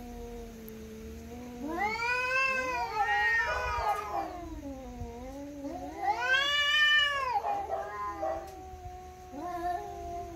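Two cats yowling at each other in long, drawn-out wails that rise and fall in pitch, one low steady moan under higher swelling cries, the voices overlapping. The loudest swells come about two seconds in and again about six seconds in. This is the threat caterwauling of a face-to-face cat standoff.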